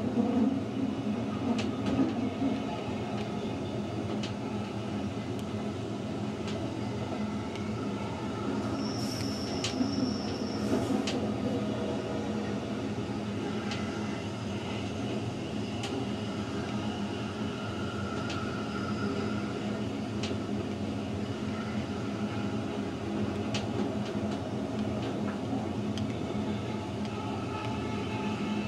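Narrow-gauge Rhaetian Railway electric train running, with a steady rumble of wheels on rail and scattered clicks. A brief high-pitched wheel squeal comes in twice, about nine and ten seconds in.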